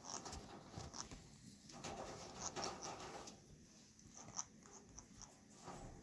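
Soft, scattered clicks and smacks from an Alexandrine parakeet's beak and tongue as it works a mouthful of milky liquid taken from a spoon.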